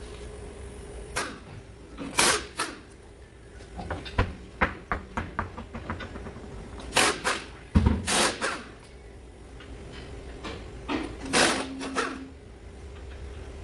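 Irregular clicks and knocks, some in quick clusters, over a steady low hum.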